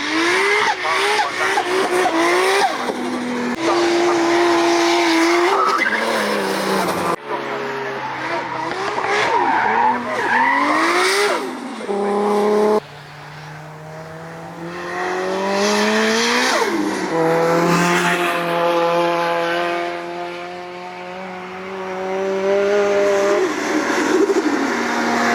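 Drift cars' engines revving up and down hard as they slide, over tyre squeal and skidding noise. The sound jumps abruptly twice, at about 7 and 13 seconds in.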